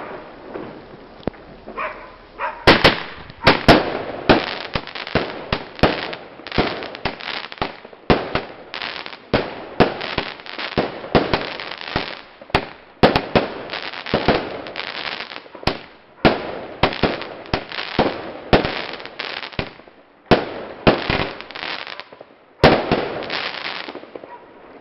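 Mirnovec 'Tip-Top' multi-shot fireworks box firing: a rapid string of sharp bangs, two or three a second, starting about three seconds in. The bangs pause briefly near the end, then a last loud volley goes off and dies away.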